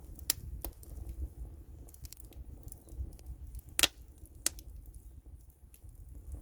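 Wood fire crackling, with a few sharp pops, the loudest about four seconds in, over a low rumble.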